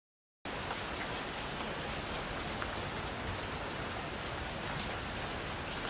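Steady rain falling, an even hiss of drops that starts abruptly about half a second in.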